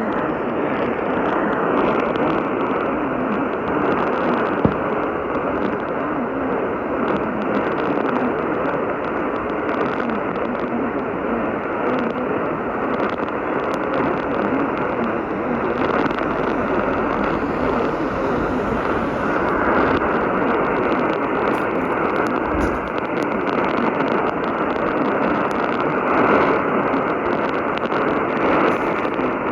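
Steady radio static: a loud, even hiss with everything above about 3 kHz cut off, and a faint wavering whistle running through it.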